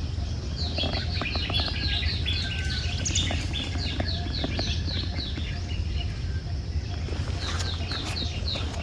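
A bird calling in rapid runs of short, high, falling chirps, about five a second, in three bursts, over a steady low rumble.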